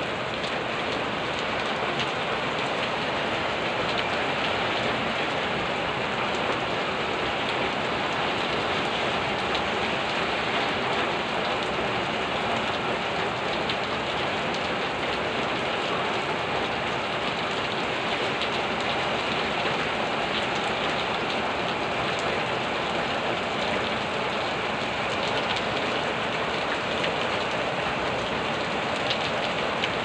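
Heavy rain falling steadily on tiled roofs and the ground: a dense, even hiss of rain with a fine patter of drops.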